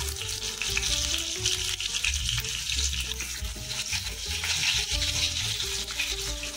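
Food sizzling and frying in hot oil in a kadai, with the spatula stirring and scraping against the pan in frequent small clicks. Background music with a bass line plays underneath.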